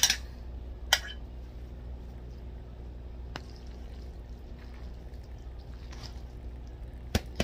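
Sauced spaghetti and sausage being scooped into a baking pan, with wet, sloppy food sounds. A utensil clicks sharply against the dish at the start and again about a second in, once faintly mid-way, and twice in quick succession near the end, over a steady low hum.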